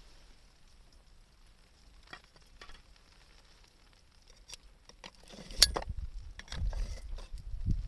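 Sparse, faint ticks and crackles. From about five seconds in come low thuds and one sharp knock, like wood or gear being handled beside a campfire.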